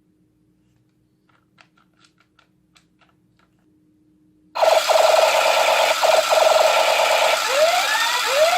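A few faint clicks, then a toy rifle's electronic sound effect switches on suddenly about four and a half seconds in: loud simulated automatic gunfire as a fast rattle, with rising whistling sweeps near the end.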